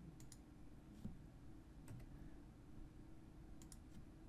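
Near silence: quiet room tone with a few faint computer mouse clicks, including a quick cluster of clicks near the end.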